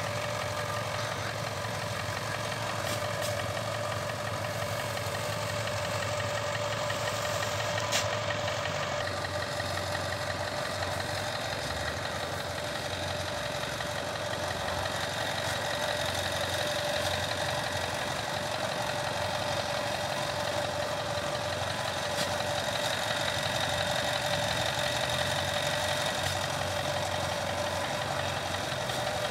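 Diesel farm engine running steadily, an even unbroken drone.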